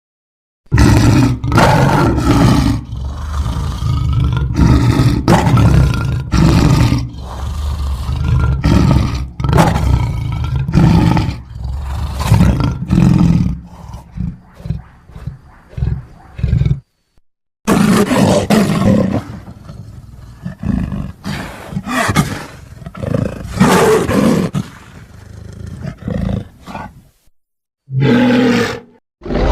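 Monster roar sound effects presented as the Jersey Devil: a long series of loud, rough roars and screeches, some short and some drawn out, broken by brief silences about 17 and 28 seconds in.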